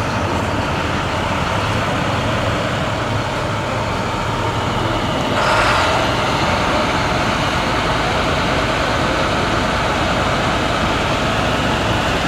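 Steady engine and road-traffic noise, a continuous rumble with a brief louder rush about five seconds in.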